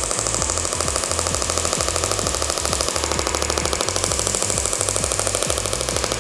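Shockwave therapy applicator firing a rapid, steady train of clicking pulses as it treats the shoulder tissue.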